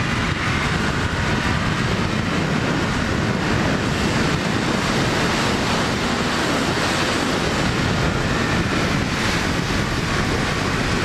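Steady wind rush over the microphone while riding a Ducati Supersport 939 at speed, with the bike's 937 cc V-twin engine running faintly underneath.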